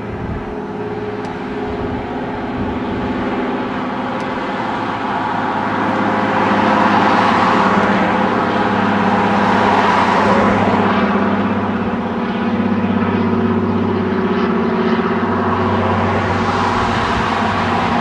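A motor vehicle's engine running with a steady low hum, joined by the rushing noise of road traffic that swells about six seconds in, dips briefly, then rises again.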